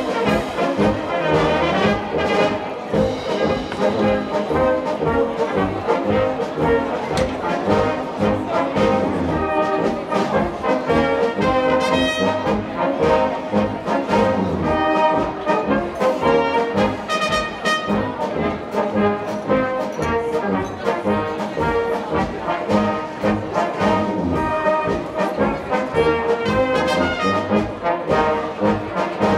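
Live folk brass band playing a dance tune, trumpets and trombones over a steady bass beat.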